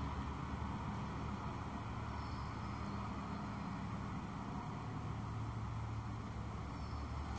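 Steady low hum with an even rush of background noise, unchanging throughout.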